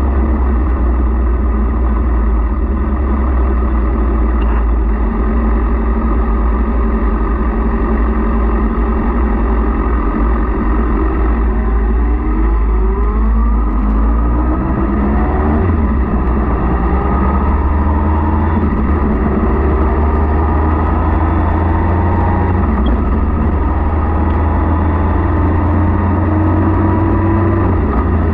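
Motorcycle engine running under way, with heavy low wind rumble. About twelve seconds in, the engine pitch rises, and it rises again in a series of climbs later on as the bike accelerates.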